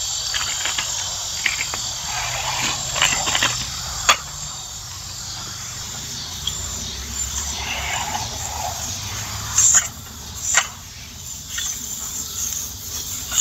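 Beer brat sizzling on a lit camp stove: a steady high sizzle, with a few sharp knocks, the loudest two about ten seconds in.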